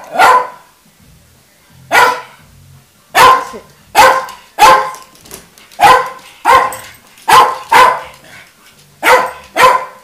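Jack Russell terrier barking repeatedly at a lit jack-o'-lantern it dislikes: about eleven loud, short barks at uneven intervals, some in quick pairs.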